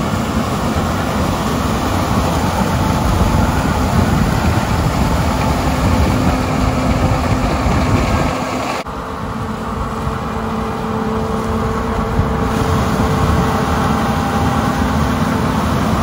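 John Deere combine harvesting corn: its engine and threshing machinery running steadily under load as the corn head takes in the stalks. The level dips briefly about nine seconds in.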